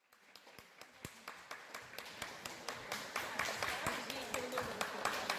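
Chatter of many voices in a hall, mixed with scattered sharp taps and knocks, fading in from silence at the start and building.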